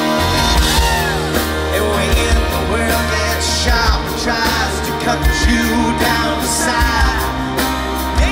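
Live rock band playing: a male lead vocal over electric guitars, bass and drums, with the bass and drums coming in at the very start.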